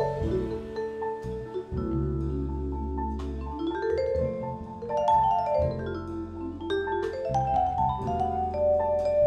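Vibraphone played with yarn mallets in a jazz solo: quick runs of ringing notes, climbing in pitch twice, over low sustained notes underneath.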